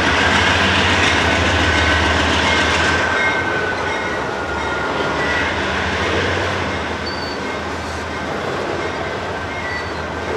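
Freight train passing: a diesel locomotive's low engine drone fades over the first three seconds as it enters the tunnel. Autorack cars then roll past with steady wheel noise and brief high-pitched flange squeals.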